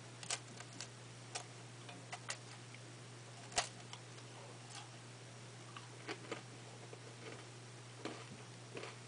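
Eating sounds from a Drumstick ice cream cone being bitten and chewed: irregular crisp crunches and mouth clicks, the sharpest a little past three seconds in. A steady low hum runs underneath.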